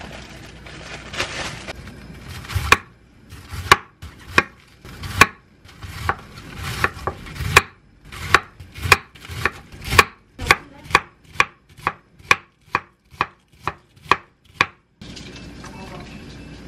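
A kitchen knife chopping cabbage on a wooden cutting board: sharp knocks of the blade against the board, uneven at first, then an even rhythm of about two a second. A steady hiss comes before the chopping starts.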